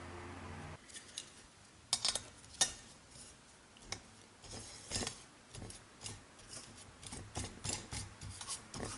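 Parts of a camping stove kit being handled and fitted together: scattered light clicks, taps and short scrapes of plastic and metal. A low hum cuts off under a second in.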